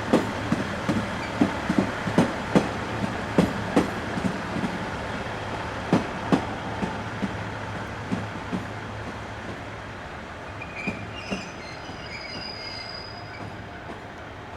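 Wheels of an EF64 electric locomotive and its hauled E217 series cars clacking over rail joints. The clacks are loud and close together at first, then space out and fade. A faint high squeal comes in about eleven seconds in.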